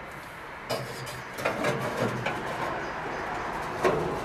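Metal rotisserie spit on a gas grill being handled and adjusted, giving several separate clicks and knocks of metal against the spit supports.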